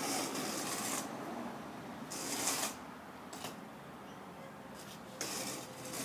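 A straightedge being dragged across bedding sand, screeding it level for brick paving: scraping strokes, the clearest at the start, about two seconds in, and near the end.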